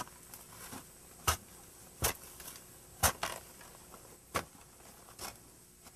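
A long-handled metal blade chopping down into plantain suckers and soil at the base of the plant, to remove the suckers from the mother plant: a sharp strike about once a second, the last ones fainter.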